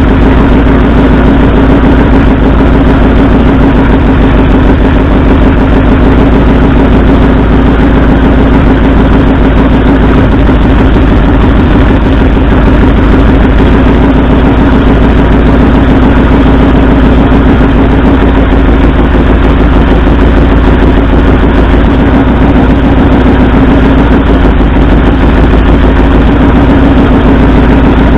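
1964 Ford F100's V8 idling steadily and loudly with a misfire: two cylinders are not firing.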